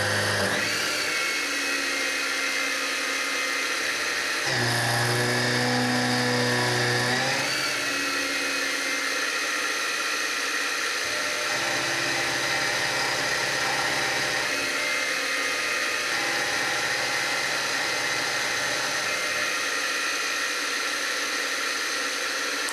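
CNC-converted Grizzly G0704 milling machine running its spindle at about 2100 RPM while an end mill takes light, narrow passes (0.029 in width of cut at 52 in/min) in aluminum: a steady machine whine. The spindle's pitch rises just after the start, lower tones from the machine shift several times and are loudest a few seconds in, and the whole sound cuts off suddenly at the end as the mill is stopped.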